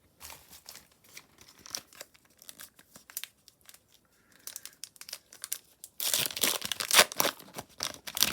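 Foil trading-card pack wrapper crinkling as it is handled, then torn open about six seconds in, the loudest part, with a burst of tearing and crackling.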